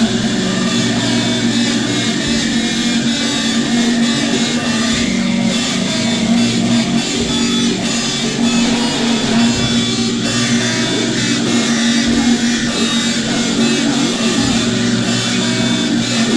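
Instrumental rock music carried by guitar, loud and steady, with no singing.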